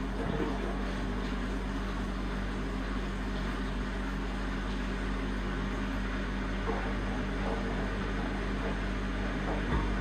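Washing machine running with a steady low hum, with a faint knock near the end.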